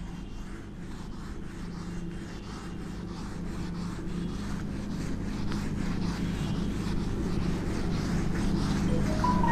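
Handheld eraser scrubbing across a whiteboard in a run of faint, quick strokes, over a steady low hum that slowly grows louder.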